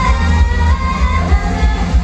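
Live band music played loudly through a live-house PA, with a heavy steady low end; a held sung note ends right at the start.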